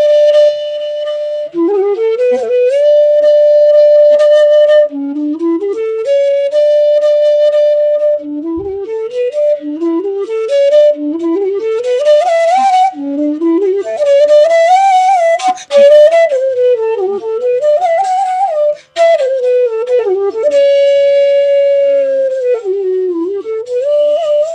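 Bansuri, the North Indian bamboo flute, playing solo: long held notes joined by sliding bends. In the middle come several quick rising runs of short notes.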